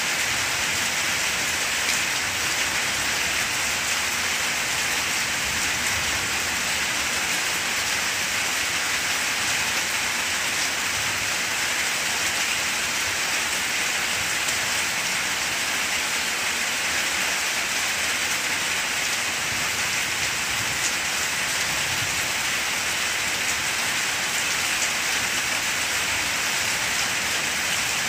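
Steady rain falling on the broad leaves of banana plants.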